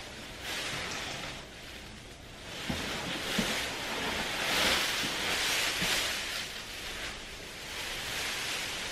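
Thin plastic bag rustling and crinkling as it is pulled and lifted off a figure, in uneven swells that are loudest about halfway through, with a few light knocks.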